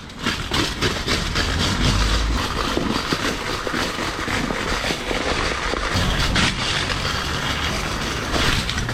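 Bare aluminium rear rim of a mountain bike rolling on the ground with no tyre: a continuous grinding rattle with many small clicks and knocks.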